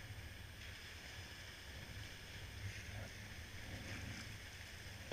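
Faint sounds of a sea kayak being paddled on calm water: soft paddle dips and water against the hull, with a low wind rumble on the microphone.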